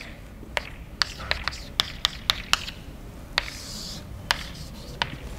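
Chalk writing on a blackboard: a string of sharp taps, about a dozen, as the chalk strikes the board at the start of each stroke, with one longer scrape about three and a half seconds in.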